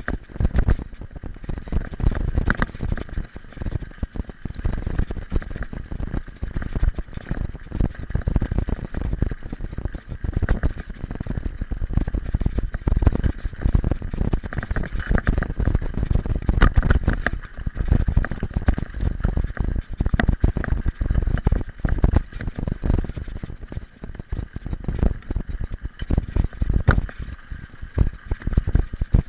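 Mountain bike rolling over a loose gravel road, picked up by a handlebar-mounted camera: continuous low rumble with dense, irregular knocks and rattles as the tyres and bike jolt over the stones.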